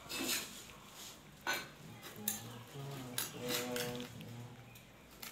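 Sharp taps and clinks of tiling hand tools on a large ceramic floor tile as it is being laid. There are half a dozen spaced strikes, one with a brief ring near the middle.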